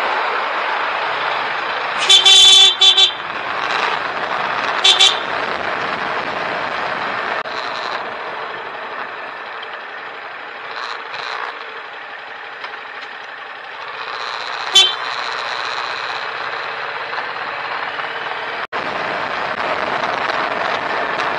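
Car horn honking: a cluster of short toots about two seconds in, another pair about five seconds in, and one quick toot near fifteen seconds. Under it runs steady engine and tyre noise heard from inside a moving car.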